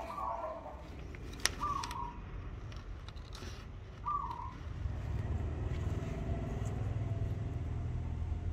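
Steel scissors cutting a paper template, with a sharp click about a second and a half in. From about four and a half seconds in, a steady low rumble rises and becomes the loudest sound.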